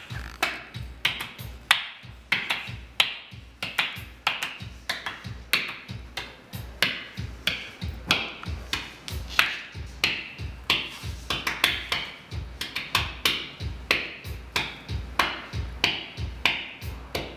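Beatboxed vocal percussion: a steady, repeating beat of low kick-drum-like thumps with sharp snare- and hi-hat-like clicks over it.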